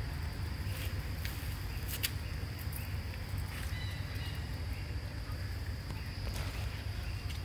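Forest ambience: a steady high insect buzz over a low rumble, with a few scattered clicks and some faint short chirps about halfway through.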